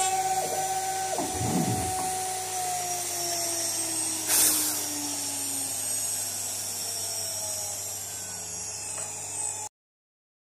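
Chinese 4 kW water-cooled CNC spindle whining as it winds down, its pitch falling steadily over several seconds, with a low thump about a second and a half in and a short hiss midway. The sound cuts off suddenly near the end.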